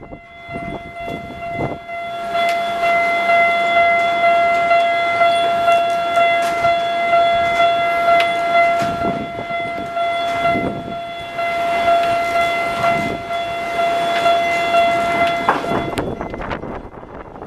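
Japanese railway level-crossing alarm ringing: a steady electronic bell tone pulsing about twice a second, which cuts off about a second before the end. Strong wind buffets the microphone throughout.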